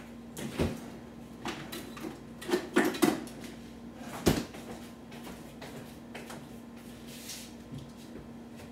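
Kitchen knocks and clunks from a cupboard door and a cooking pot being handled: a handful of sharp bumps, loudest about three seconds in and again just past four seconds. A steady low hum runs underneath.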